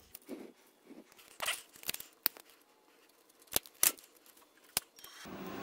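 Small metal clicks and rustling as a brass contact-tip holder is screwed by hand into a MIG welding gun's neck. Near the end a steady motor whir starts, the welder's wire feeder running to cold-feed the wire.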